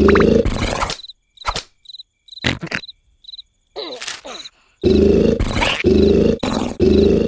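Cartoon sound effects: a loud, low pitched sound at the start and again near the end, with a quieter stretch in between of sharp clicks and short high chirps like crickets.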